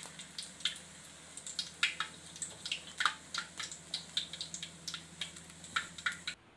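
Hot oil in a wok crackling with irregular small pops as battered banana fritters drain in a wire strainer above it, oil dripping back into the hot oil, over a steady low hum. The sound cuts off suddenly near the end.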